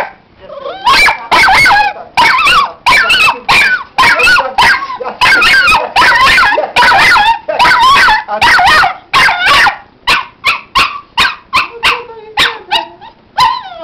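A puppy barking without pause, a rapid string of high-pitched barks about three a second, breaking after about ten seconds into shorter, sharper yips with gaps between them.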